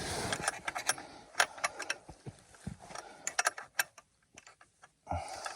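Scattered sharp clicks and light metallic ticks as a snowmobile's clutch and drive belt are turned by hand, with a soft rustle in the first second and again near the end.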